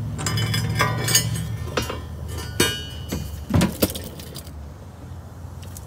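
Light metal clinks and taps as a bolt on a pulling wire is worked through the hole in a car's frame rail for a hitch install. They come irregularly, thin out after about four seconds, and sit over a low steady hum.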